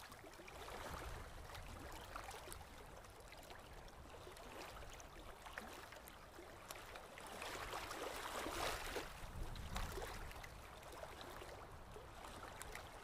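Faint surf: small waves washing up on a sandy beach, a steady hiss that swells for a few seconds past the middle.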